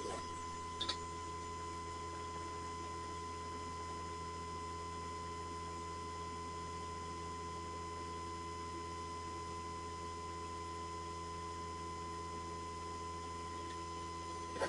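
Steady electrical hum made of several fixed tones, one high whine standing out, with a single faint click about a second in.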